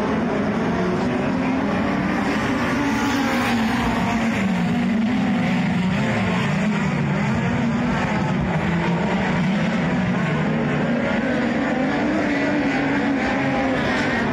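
A field of methanol-fuelled speedway race cars lapping a dirt oval. Several engines sound at once, rising and falling in pitch as they power down the straights and ease off into the turns.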